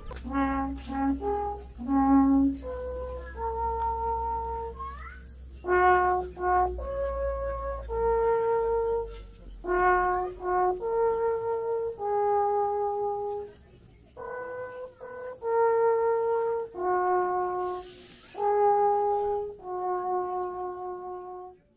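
A horn playing a slow melody of long held notes, phrase after phrase with short breaks between them.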